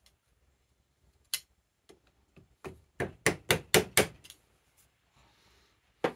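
A fork seal driver, a two-part metal slide hammer, knocking down on a motorcycle fork leg to drive the new fork seal home. It gives a string of sharp metal knocks, quickening to about four a second in the middle, with one more knock near the end.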